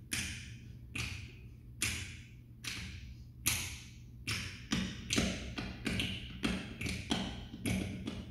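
Percussion ensemble playing a rhythm of sharp, dry hand strikes: single hits about one a second at first, growing denser from about four seconds in, with two or three hits to each beat.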